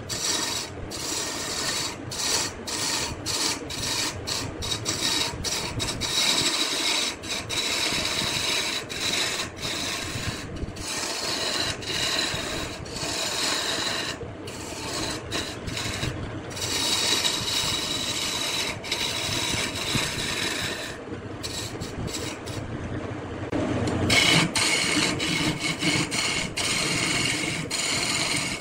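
Wood being worked on a spinning wood lathe: a continuous rasping, scraping sound of a tool or abrasive against the turning wood. It is broken by many brief gaps, and its tone changes about 24 seconds in.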